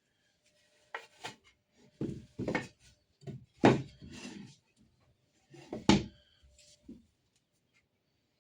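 Pieces of wood being handled: a string of separate knocks and short scrapes as boards are set down and knocked together, the loudest a little before the middle and about six seconds in.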